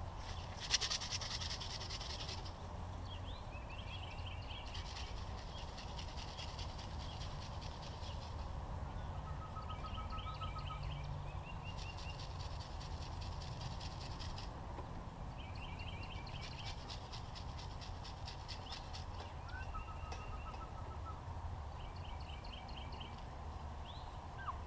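Small wild birds chirping in short series of quick repeated notes, several times, with a few longer buzzy trills, over a steady low rumble of background noise.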